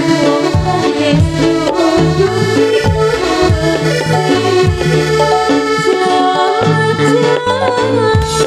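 Live instrumental dance music: an electronic keyboard plays a sustained melody over a steady drum beat.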